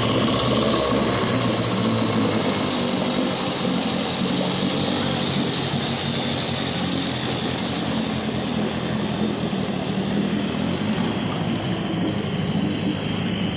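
Small outboard motor running steadily at a constant speed, its lower unit sunk in a bucket of water for a test run, the propeller churning the water.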